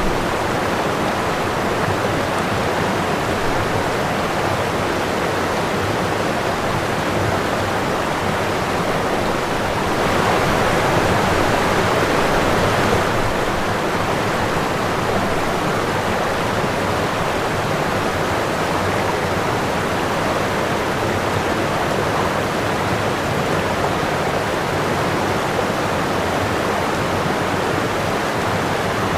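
Running water rushing steadily, swelling slightly louder for a few seconds about a third of the way in.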